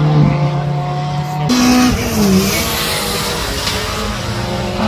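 Rally car engine running at steady revs. About a second and a half in, the note jumps up and then falls back, and a hiss of tyres on the wet tarmac comes in.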